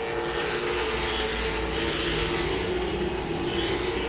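Late model stock cars' V8 engines running at racing speed around a short oval, a steady drone whose pitch holds level.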